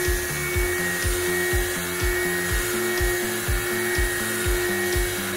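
Background music with a steady beat, about two beats a second, over the steady whine of a CNC mill's spindle driving a quarter-inch four-flute roughing end mill at 5000 RPM through steel plate.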